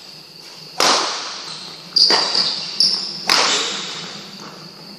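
Badminton rackets striking the shuttlecock in a rally, sharp cracks about a second in, at the middle and past the three-quarter mark, each ringing on in the echo of a large hall. Brief squeaks from shoes on the court floor fall between the strikes.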